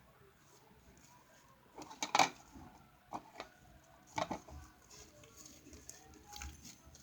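A few short clinks and knocks of a spoon and bowl being handled during slime mixing, the loudest about two seconds in.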